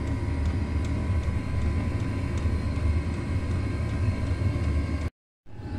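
Chinese diesel air heater running: a steady low combustion rumble with a thin steady whine above it and faint, evenly spaced ticks of its fuel dosing pump. The sound drops out completely for a moment near the end.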